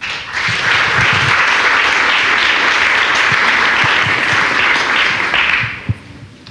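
An audience applauding, starting at once and dying away about six seconds in.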